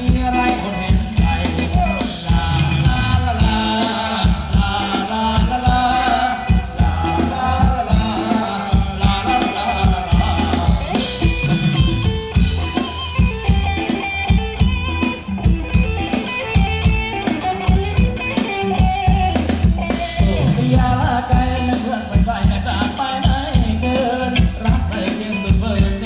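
Live band playing Thai ramwong dance music: a steady drum beat with a singer and a rattling shaker-like percussion.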